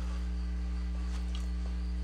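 Steady low electrical mains hum, with a few faint light clicks and crinkles about a second in as powdered corn chips are picked up off a paper towel.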